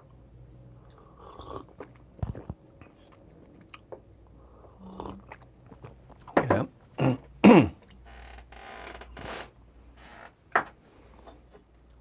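Brewed coffee being slurped from a small glass during a tasting: a few faint sips and mouth noises, then three sharp, loud slurps between about six and seven and a half seconds in, followed by a longer breathy hiss.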